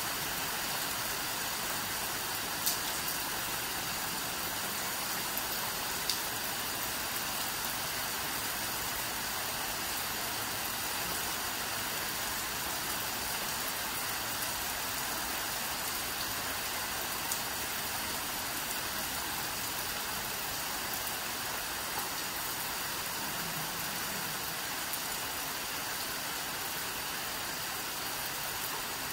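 Steady tropical rain falling on dense leaves, an even hiss, with a few sharp drip ticks now and then.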